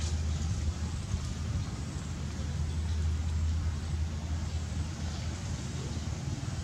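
A steady low rumble under a faint, even hiss, with no clear distinct events.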